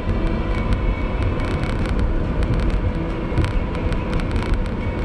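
Steady low rumble of a car driving along a paved road: engine and tyre noise.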